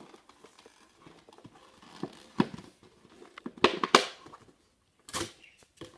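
Hard plastic toy packaging being handled and pried at by hand, a few scattered clicks and crinkles with quiet stretches between them.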